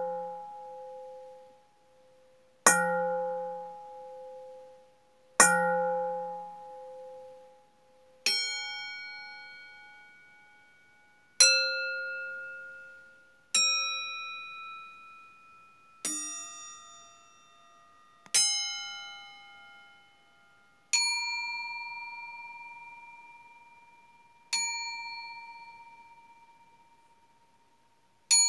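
Stainless steel bowls struck one after another, about every two to four seconds, each ringing out with clear tones and slowly fading. The first three strikes share one pitch; the later ones come at different pitches, so several bowls are being played. A final strike lands at the very end.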